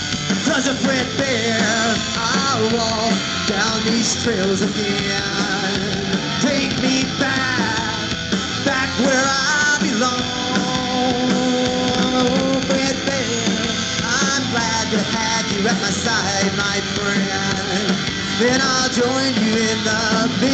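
Live rock band playing an instrumental passage on electric guitar, bass guitar and drums, with lead lines that bend up and down in pitch.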